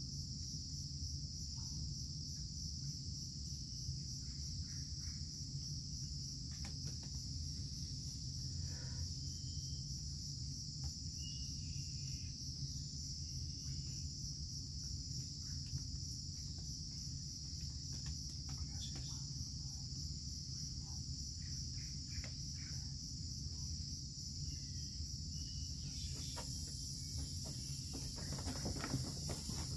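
Steady high-pitched chorus of rainforest insects over a low rumble, with a few faint clicks and knocks scattered through and some rustling near the end.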